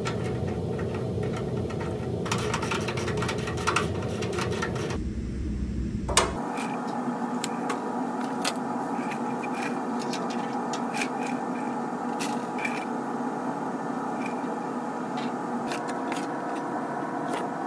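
Workshop handling sounds: scattered light clicks and scrapes of metal brackets and sheet metal being fitted and handled, over a steady background hum.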